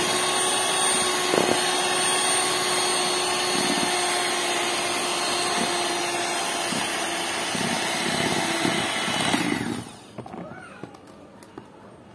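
Kenwood electric hand mixer running at speed, its beaters whirring through whipped egg whites with sugar and oil in a plastic bowl, with a steady motor whine and a few knocks. It is switched off near the end, and a few faint clicks follow.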